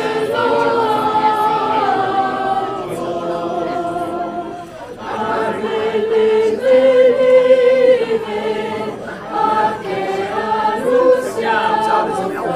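Choir singing, several voices holding long notes.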